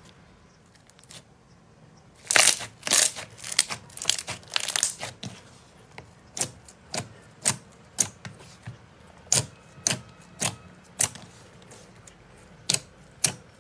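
Translucent red jelly slime being stretched, pressed and folded by hand, giving sharp wet pops and clicks as the air pockets in it burst. A dense run of loud pops comes about two seconds in, then single pops about twice a second.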